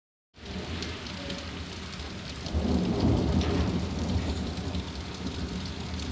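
Steady rain with a low rumble of thunder that swells about two and a half seconds in, is loudest around three seconds, then eases back under the rain.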